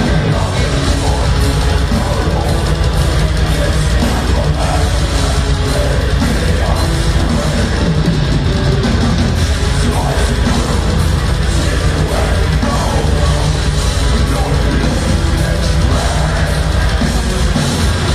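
Death metal band playing live at full volume: distorted guitars and bass over fast, dense drumming, with harsh shouted vocals, heard from the crowd.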